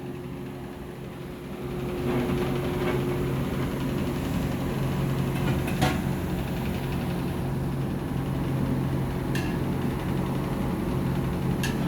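Steady mechanical hum from a motor or fan, growing louder about two seconds in, with three sharp clicks or knocks scattered through it.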